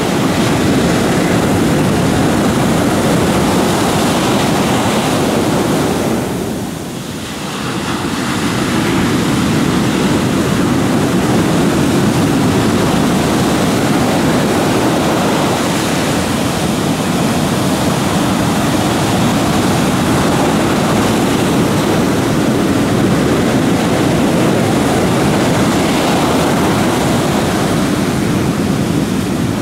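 Heavy surf breaking continuously on the beach and washing against the hull of a stranded wooden fishing boat. The noise dips briefly about seven seconds in, then returns.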